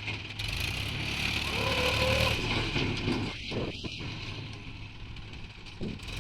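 Heavy diesel engine running steadily, growing louder about a second and a half in with a brief whine. Crickets chirp in the background.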